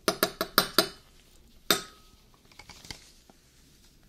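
A metal spoon tapping against a small glass bowl: five quick clinks in under a second, then one more a second later that rings briefly. Faint scraping follows.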